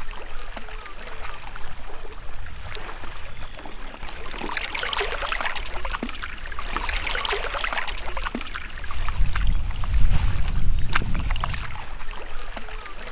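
Kayak paddle blades dipping and splashing in calm water, a run of splashy strokes in the middle with drips trickling off the blades. A low rumble swells under the loudest splashes about nine to eleven seconds in.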